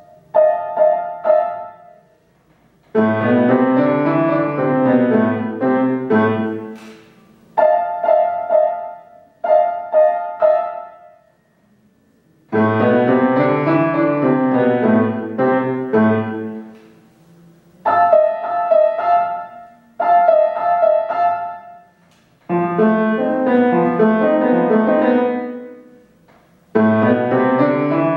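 Solo grand piano playing a children's classical piece: short phrases high on the keyboard alternate with longer, fuller passages in the low register, with brief pauses between them.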